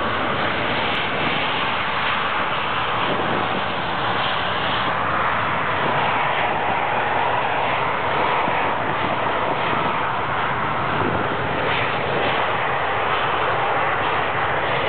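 Several BAE Hawk T1 jets with their Adour turbofan engines at take-off power on the runway, a loud, steady jet noise.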